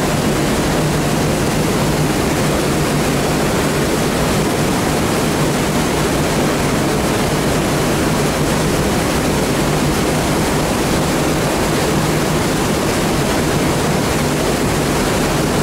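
Rushing water of the Kotlovka, an underground river, in its collector tunnel: a loud, steady noise of flowing water with a constant low hum beneath it.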